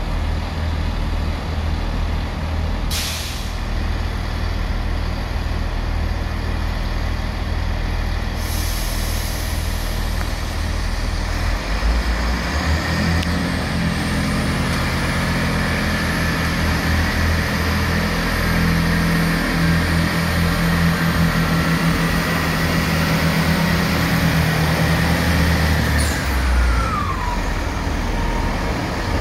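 Diesel train's engine running, with a short hiss of air about three seconds in. Around twelve seconds in, the engine note rises and a high whine climbs slowly. Near the end, a tone falls away as the note drops.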